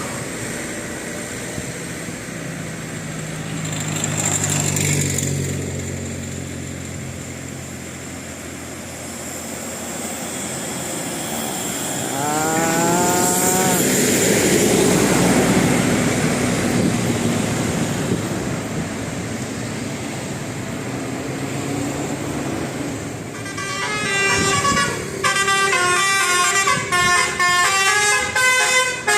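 Vehicles passing on a road, with engine noise. From about two-thirds of the way through, a bus's 'telolet' Basuri musical horn plays a fast run of melodic notes, stepping up and down in pitch and repeating.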